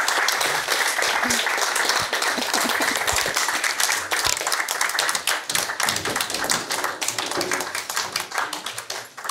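Audience applauding. The clapping thins out to scattered single claps and fades near the end.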